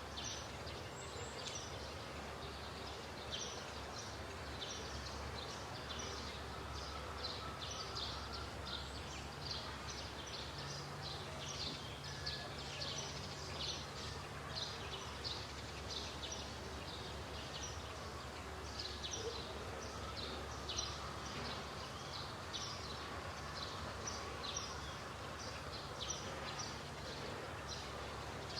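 Many short, high chirps from animals, repeating throughout over a steady low hum.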